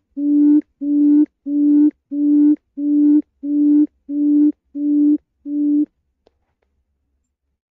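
Quail call (chim cút): a steady series of low, even hoots, about nine of them at an unchanging pace, which stops about six seconds in. It is played as a lure call for trapping quail.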